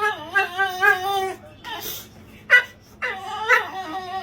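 Dog whining in long, wavering, drawn-out moans, broken by one short sharp yip about halfway through.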